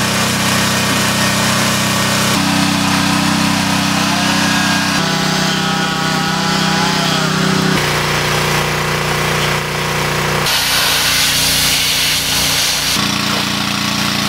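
Pressure washer running and spraying: a steady machine hum under a broad hiss of spray. The pitch of the hum shifts abruptly every few seconds.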